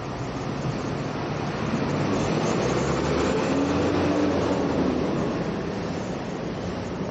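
Road traffic heard from a stationary tram: a box truck's engine rumbles past close alongside, swelling to its loudest about four seconds in and then fading.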